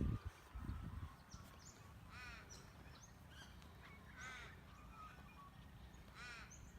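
A bird calling in short repeated phrases about every two seconds, over a faint steady low rumble.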